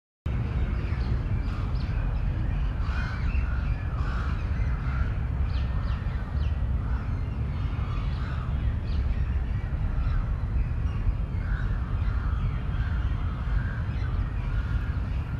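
Crows cawing again and again over a steady low rumble.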